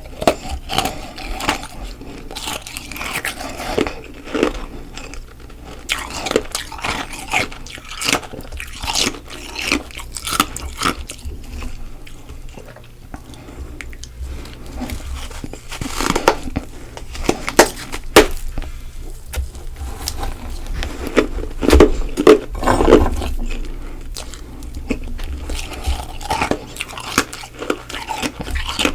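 Close-miked biting and chewing of freezer frost: irregular hard and soft crunches following one another throughout, loudest about twenty-two seconds in.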